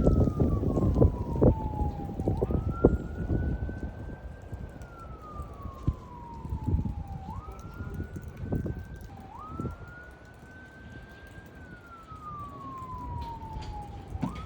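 An emergency-vehicle siren in wail mode: one tone that climbs quickly, then falls slowly, about four times. Underneath is a low rumbling noise with a few sharp thumps, loudest in the first few seconds.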